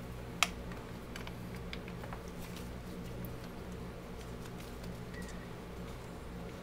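A single sharp click about half a second in, then a faint, steady low electrical hum with scattered light ticks.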